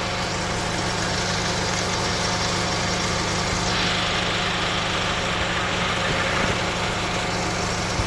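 2006 Honda Civic's four-cylinder engine idling steadily, heard up close in the engine bay, with the A/C fan running. The A/C is switched on but the compressor clutch is not engaging, so no compressor kicks in.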